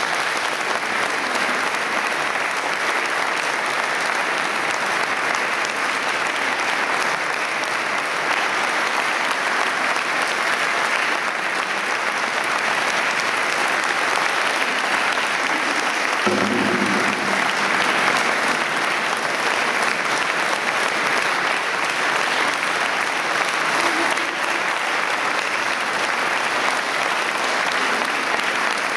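Audience applauding steadily at the end of a concert piece, sustained clapping throughout.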